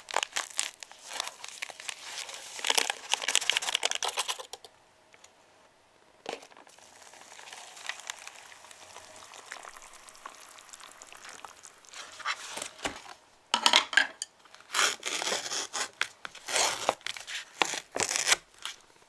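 Crinkling and tearing of a foil soup packet and the paper lid of an instant cup ramen, handled by hands in plastic gloves. In the middle comes a quieter steady hiss of hot water being poured into the cup, followed near the end by more crinkling of the lid and packaging.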